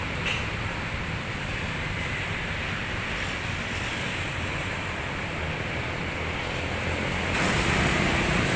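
Roadside traffic noise: large bus engines rumbling as tour buses pass, with wind on the microphone. It grows louder and hissier about seven seconds in, as a vehicle comes closer.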